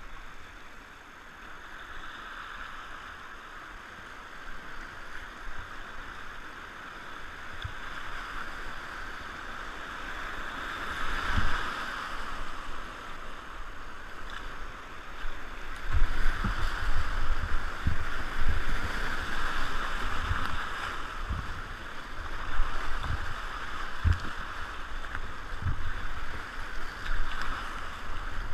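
Whitewater rapids rushing around a kayak, swelling louder in the second half as the boat runs into rougher water, with irregular low thumps of water slapping the hull.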